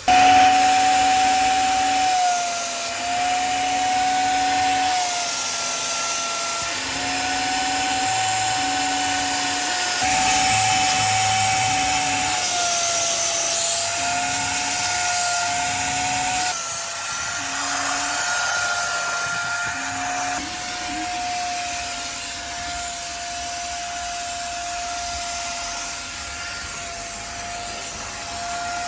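Vacuum cleaner running steadily during interior detailing, its whine dipping slightly in pitch now and then, with a lower hum that cuts in and out every second or two for the first two-thirds.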